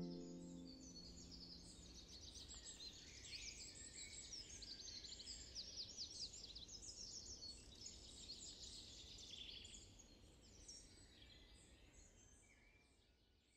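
Faint chorus of small birds singing and chirping, many quick overlapping chirps, fading out toward the end. A piano chord dies away in the first second.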